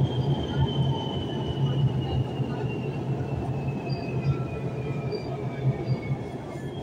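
İzmir Metro train running, heard from inside the car: steady low rumble from the wheels and car body, with a single high whine that falls slowly and evenly in pitch, the drive whine of a train slowing down.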